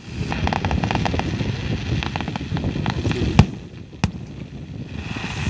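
Aerial fireworks bursting: a quick run of crackling pops in the first second, scattered pops around two seconds in, then a sharp bang about three and a half seconds in and another half a second later, over steady background noise.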